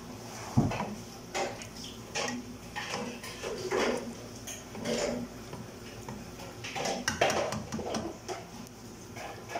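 Slotted spoon knocking and scraping against the side and bottom of a cooking pot while stirring rice into its liquid: a series of irregular clanks and scrapes, the loudest about half a second in.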